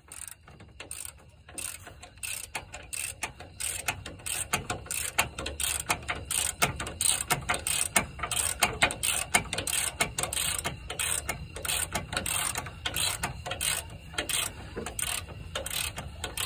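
Hand socket ratchet clicking rapidly as it turns a front differential mount bolt, starting soft and getting louder after the first few seconds.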